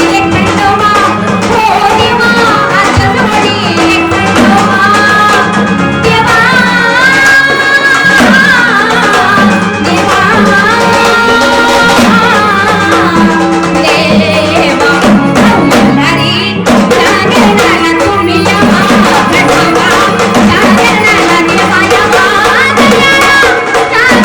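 A woman singing a Marathi devotional gondhal song to Khandoba, with sambal drums keeping a steady beat and an electronic organ holding the melody and chords.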